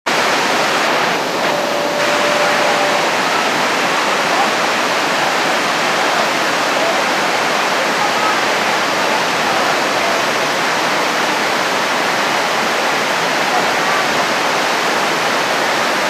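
Lake Trahlyta Falls, a waterfall cascading down stepped rock ledges, giving a steady, loud rush of water.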